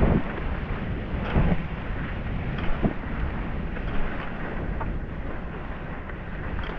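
Wind buffeting the microphone and the steady rush of sliding fast over a groomed snow piste, broken by a few thumps as the board or skis hit bumps.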